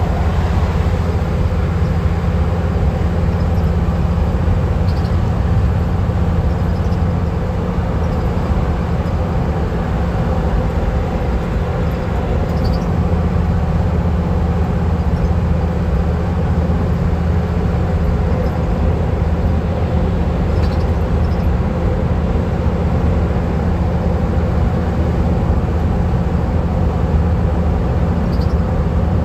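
Van cruising at steady highway speed: a constant low engine and road drone with even tyre noise and no change in pace.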